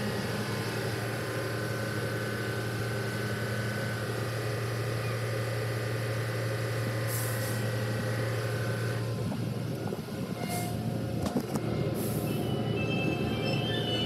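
Steady mechanical hum of car wash machinery, a low drone with several steady higher tones. The higher tones drop out about nine seconds in, and a few knocks follow. Music comes in near the end.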